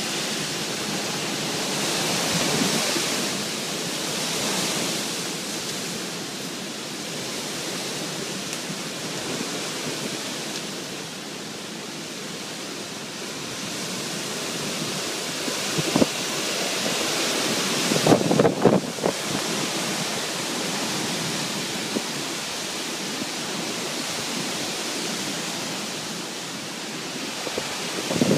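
Hurricane wind and rain: a steady rushing noise that swells in gusts, with a sharp knock about sixteen seconds in and a brief rattling clatter a couple of seconds later.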